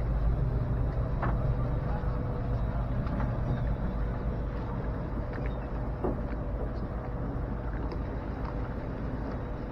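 Boat engine running steadily at low speed: an even low hum with a faint steady whine above it.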